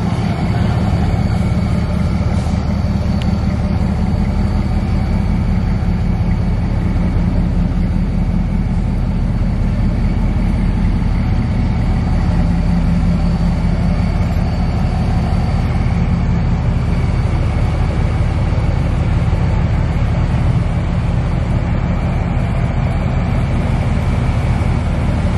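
2008 Dodge Ram 1500 pickup engine running at idle, a steady deep drone with no revving.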